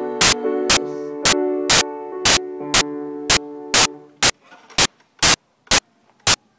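A chord on a Kawai piano is held and dies away, fading out about four seconds in. Through it, and on after the piano has stopped, a loud sharp click repeats at an even pace of about two a second.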